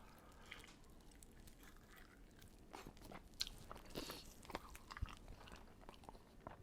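Faint close-up chewing and biting of saucy chicken wings, with scattered wet mouth clicks and smacks that grow more frequent about halfway through.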